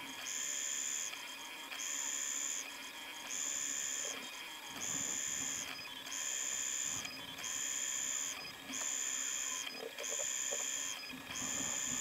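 Prusa Mini+ 3D printer running: a high stepper-motor whine that switches on and off in a regular cycle about every second and a quarter, over a steady hum.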